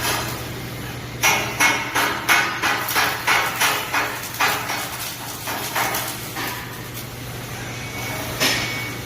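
A quick run of sharp metallic knocks, about three a second, that stops about six seconds in, with one more knock near the end, over a steady electrical hum.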